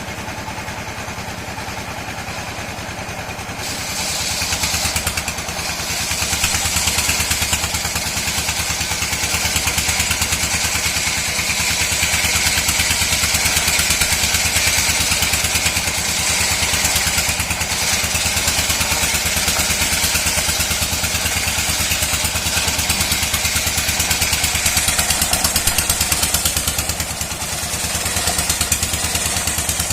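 Sawmill saw running under engine power, then from about four seconds in cutting through dry mahogany with a loud, high-pitched screech over the engine's steady running.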